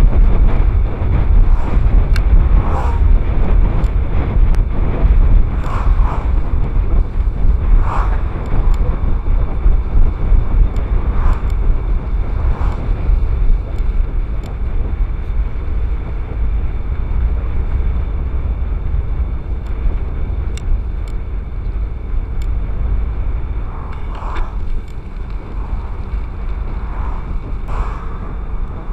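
Wind buffeting the microphone of a camera riding on a moving bicycle: a loud, steady low rumble, with scattered clicks and short rattles.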